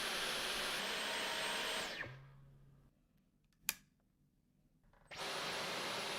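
Dyson cordless stick vacuum running, then switched off about two seconds in, its motor winding down over about a second. After a short quiet with a single sharp click, it is switched back on and cuts straight back in at full power.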